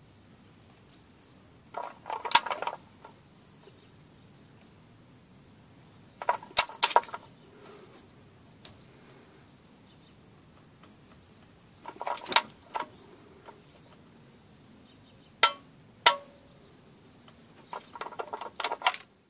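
A hand ratchet clicking in short bursts, about six times, as its handle is swung back between turns on a socket under the van's engine.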